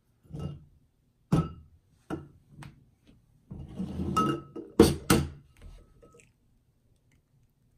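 Light knocks and clinks of eggs being handled in a small glass bowl, then two sharp cracks close together about five seconds in as a hen's egg is tapped against the mixing bowl to break its shell.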